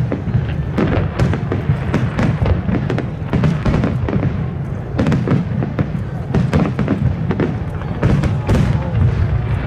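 Aerial firework shells bursting in a dense barrage, many overlapping bangs every second with no let-up.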